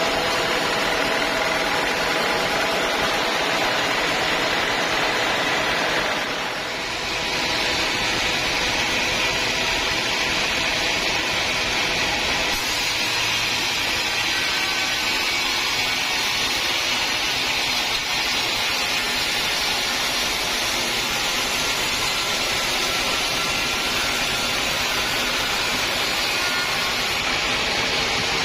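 Sawmill saw cutting through a teak log: steady machine noise with faint whining tones, dipping briefly about six seconds in.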